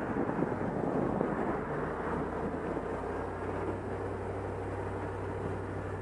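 2004 Chevy Tahoe's V8 engine held in drive against the brakes and given throttle: a brake torque test to provoke a misfire. It is louder for the first couple of seconds, then settles to a steady low hum.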